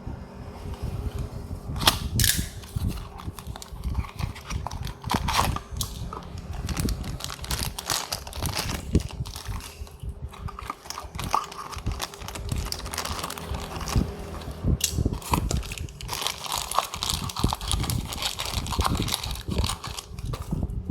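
Hands handling toy-car packaging and small die-cast cars: a busy run of clicks, taps and short rustles of cardboard and plastic, over a faint steady hum.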